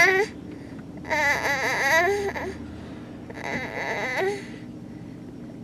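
A one-year-old's drowsy, whining cries as he falls asleep: one trails off at the start, then two more drawn-out wails follow, the last one fainter.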